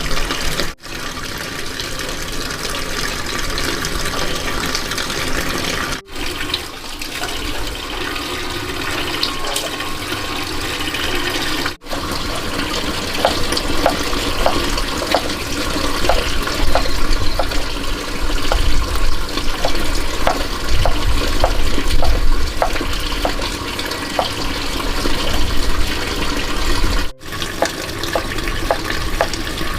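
Water running and splashing steadily, with faint light ticks in the middle stretch; it breaks off abruptly for a moment a few times.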